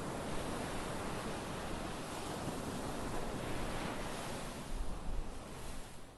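Ocean surf breaking and washing up a sandy beach: a steady rush of waves, swelling a little louder about five seconds in.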